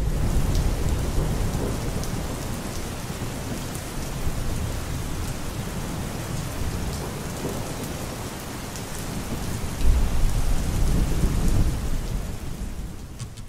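Heavy rain falling steadily, with deep thunder rumbling at the start and swelling again about ten seconds in.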